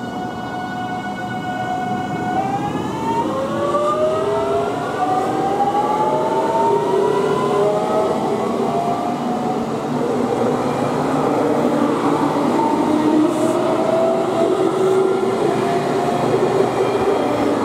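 JR Kyushu 813 series electric multiple unit pulling away from a station: its VVVF inverter and traction motors whine on a few steady notes, then from about two and a half seconds in the whine climbs in pitch in several stepped rising tones as the train gathers speed. Wheels rumbling on the rails underneath.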